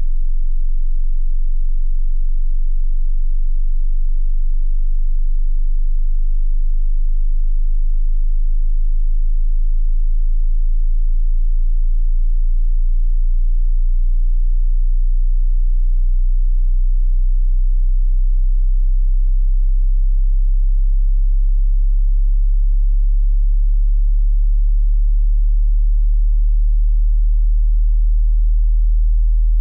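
Hearing-test sine tone at a very low bass pitch, below about 50 Hz, held at a steady loudness.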